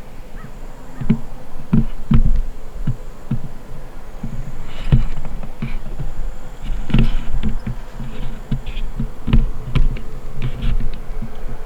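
Gnats buzzing close to the microphone, over irregular low thumps that come roughly every half second to second.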